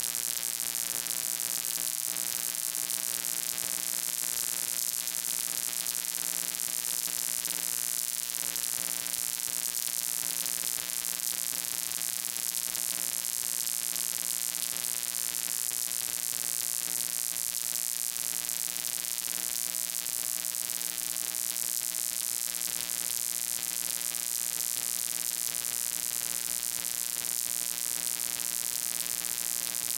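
Steady electrical hum with many overtones under a strong, even hiss. It does not change at all, and no voice comes through it.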